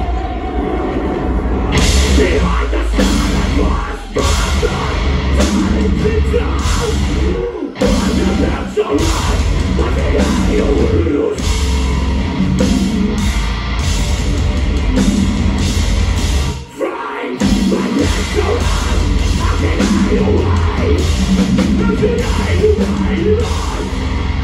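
Metalcore band playing live: heavy down-tuned guitars, bass and pounding drums with vocals, stopping dead for short moments, the longest about 17 seconds in.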